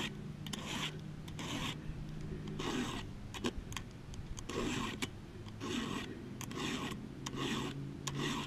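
Round file rasping across the cutter teeth of a blunt, worn chainsaw chain, sharpening it by hand: short strokes about once a second, pushed one way only, with light clicks between them.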